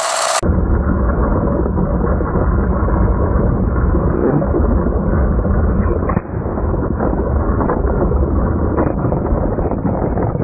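Deep, muffled rumble of a party balloon bursting under a LEGO City train, stretched out in slowed-down playback, with a few faint crackles and a short break about six seconds in.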